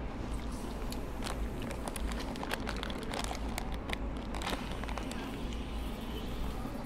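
Crinkling of a foil chip pouch being handled and picked open, many irregular sharp crackles.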